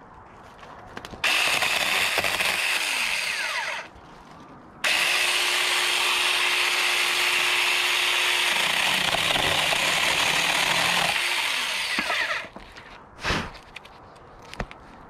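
Cordless battery mini chainsaw with a 4-inch bar running in two bursts, one of about two and a half seconds and a longer one of about seven seconds, each starting and stopping abruptly as it cuts into a small fruit-tree branch.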